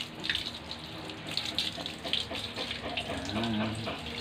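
Water running and splashing while a wet dog is scrubbed by hand, with many small splashes and drips throughout.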